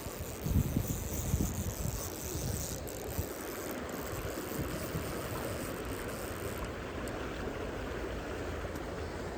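A stream running steadily, an even rushing of water. Low rumbles of wind on the microphone come in the first few seconds.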